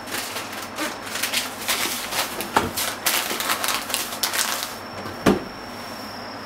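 Metal spoon stirring liquid in a glass measuring cup: a quick run of clinks and scrapes of metal against glass for about four and a half seconds, then one sharper knock about five seconds in.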